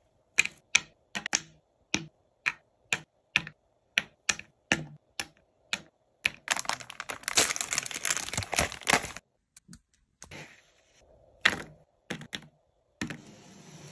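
Chocolate squares being set down one by one on a wooden platter, a sharp tap about three times a second; then, a little past the middle, a dense rattle of small biscuits poured into a compartment, followed by a few taps as wafer rolls are laid on the wood.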